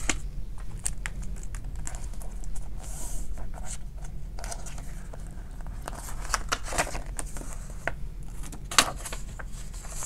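Paper bills rustling and crinkling as they are handled, counted and slid into clear plastic binder envelopes, with scattered light clicks and one sharper click near the end.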